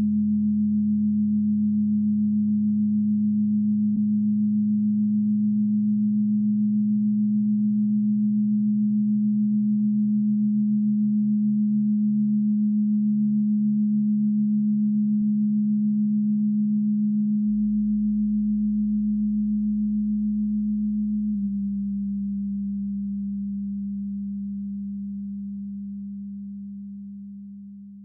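Electronic drone of steady low sine tones, one of them pulsing slowly. The lower tones change about 17 seconds in, and the whole drone fades out over the last several seconds.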